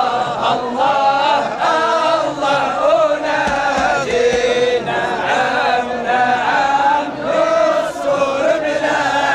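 A large crowd of marchers chanting in unison, many voices singing a slogan to a tune without a break.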